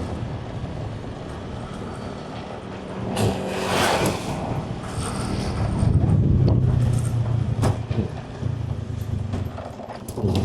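Engine and road noise of a moving vehicle, a steady low hum that grows louder about halfway through, with a brief louder rush of passing noise about three to four seconds in.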